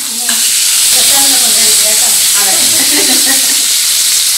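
Hot oil sizzling loudly as food fries in a pan. The sizzle starts suddenly about a third of a second in and then holds steady.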